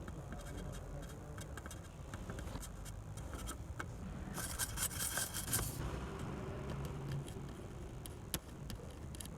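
Small tools working on a TV circuit board: scattered light clicks and scraping over a low steady hum, with a denser, scratchier stretch about halfway through.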